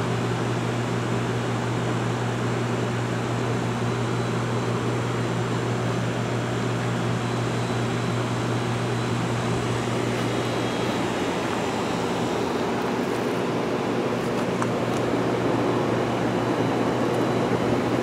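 Pool heat pump running steadily: an even fan rush over a low electric hum, the hum fading a little about two-thirds of the way through.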